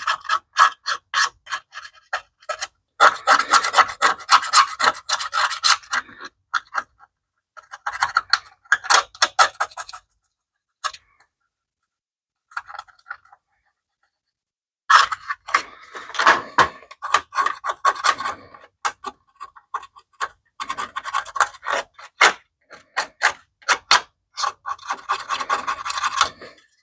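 A hand tool scraping caked grime off a BMW E30 motor-mount heat shield, in runs of quick rasping strokes. There is a pause of several seconds about midway.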